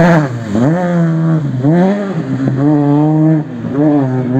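Rally car engine revving hard, its pitch climbing and dropping back about four times in quick succession.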